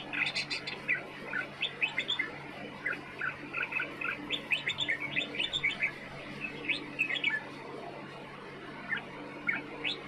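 Red-vented bulbuls calling: a run of short, high chirps in quick clusters, with a lull of about a second and a half before they pick up again near the end.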